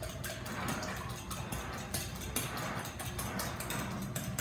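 Two eggs being beaten by hand in a glass mixing bowl, the beating utensil clicking against the glass several times a second.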